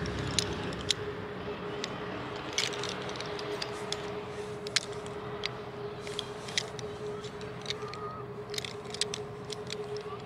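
Camping gear being handled and packed away: scattered light clicks, knocks and rustles, over a faint steady hum.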